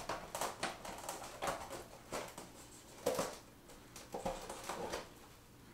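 Curved styrene brick sheet rubbing and tapping against a foam board as it is pressed and fitted into a tunnel cut: a string of irregular short scrapes, crinkles and clicks, the loudest about three seconds in.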